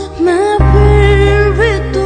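A boy's voice singing a wordless, wavering melodic line over a soft backing track, with a deep bass note coming in about half a second in.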